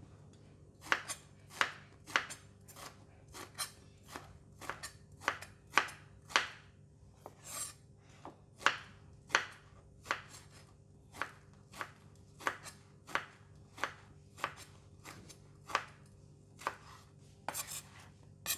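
Chef's knife chopping peeled luffa (ridged gourd) into chunks on a wooden cutting board: a run of sharp knocks of the blade against the board, about two a second, starting about a second in.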